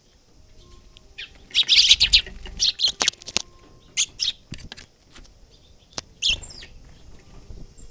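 Eurasian tree sparrow chirping in quick clusters of short, high notes, with a few sharp clicks between the calls.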